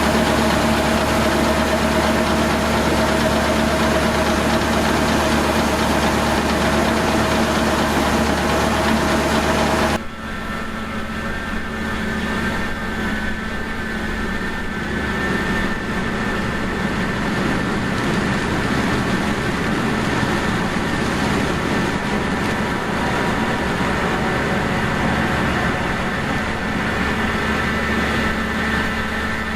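Large diesel farm machinery running steadily with a constant hum. About ten seconds in the sound cuts abruptly to a slightly quieter engine with a steady high whine over it.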